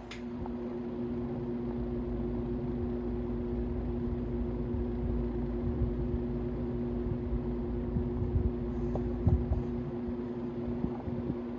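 Vintage General Electric box fan running: a steady electric-motor hum over the rush of moving air. A sharp click right at the start.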